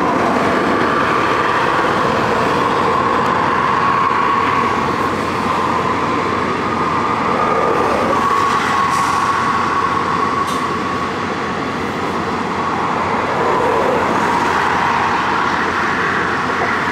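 Steady drone of heavy equipment running, with a faint whine that wavers slightly in pitch.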